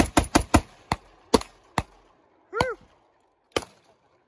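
Springfield M1A rifle in .308 with a muzzle brake fired in a fast string of shots, about five a second, with the last few spaced out and fainter. A short rising-and-falling vocal whoop follows about halfway through, then a single faint click near the end.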